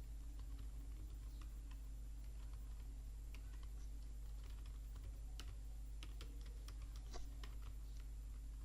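Computer keyboard being typed on: scattered, irregular keystrokes over a steady low hum.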